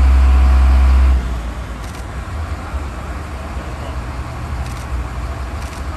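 Vehicle engine running: a loud low hum that cuts off abruptly about a second in, then a quieter steady low rumble with a few faint clicks.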